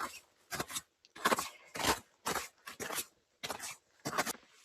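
Footsteps crunching in wet, icy snow, a steady walking pace of about two steps a second.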